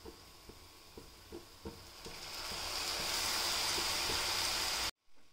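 A spatula stirring in a cooking pan with light scattered taps. About two seconds in, a steady hissing sizzle swells up and holds, then cuts off suddenly near the end.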